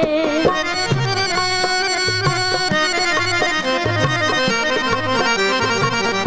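Instrumental break of a Punjabi devotional song: a free-reed instrument holds a sustained melody over a steady drum rhythm.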